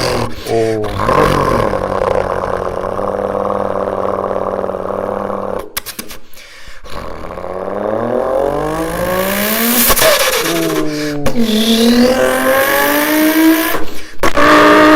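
Vocal imitation of car engines: a man's voice revving up in rising pitch through the gears. It breaks off briefly at each shift, several times, and starts again with a different engine's tone.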